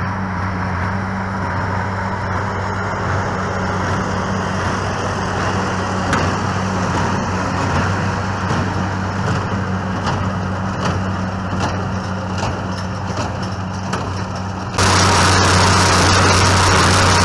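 Tractor engine running steadily with a low drone. Near the end the sound turns suddenly louder and harsher.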